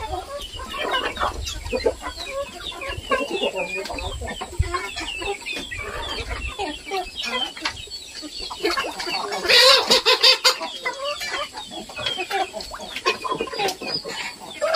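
A small flock of Indonesian native chickens (ayam kampung) clucking and cheeping. About ten seconds in there is a louder flurry with a few sharp knocks.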